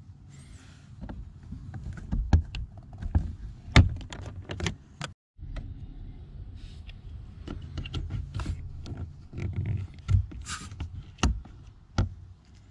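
Irregular sharp plastic clicks and knocks as a round cover cap is pried out of the Ford Focus's lower dashboard trim panel and the opening is worked with a plastic pry tool. The sound cuts out briefly about five seconds in.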